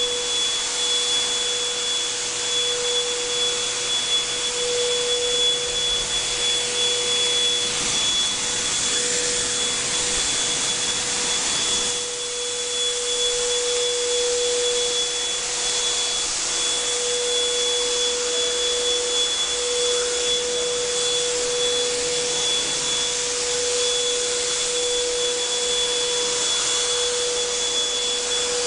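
Air blower running steadily, blowing dust off a wall before painting: a constant rush of air over a steady motor whine.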